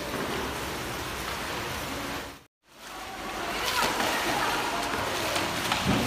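Floodwater rushing across a tiled floor, an even hiss of water. It cuts out for a moment a little before halfway, then returns with splashing and scraping as the water is pushed along with a dustpan and broom, with voices in the background.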